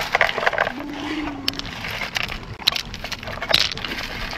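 Pebbles and gravel clicking and rattling as a gloved hand sorts through them in a plastic sifting pan. The clicks come in quick, irregular runs, loudest at the start.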